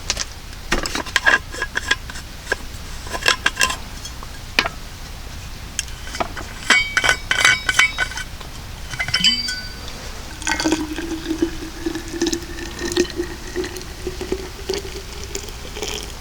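Glassware and dishes clinking and knocking, with short ringing notes. About ten seconds in, liquid is poured into a container, its tone slowly rising as it fills.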